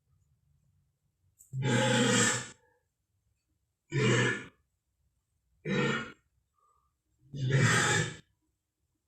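Made-up Pachyrhinosaurus sound effects: four separate low calls with silent gaps between them. The first and last last about a second each, and the middle two are shorter.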